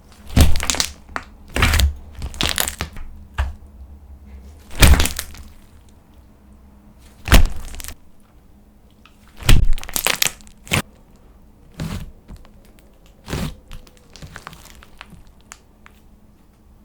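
Slime being worked by hand, giving a string of irregular sharp pops and crackles, some in quick clusters, with quiet gaps between.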